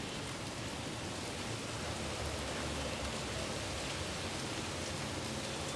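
Steady outdoor wind, with a low rumble of wind buffeting the microphone.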